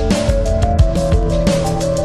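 Background music with a steady beat and a melody over it.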